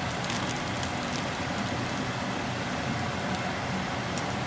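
Floured pieces of meat sizzling in melted butter in a frying pan: a steady sizzle with scattered small pops and crackles, over a low steady hum.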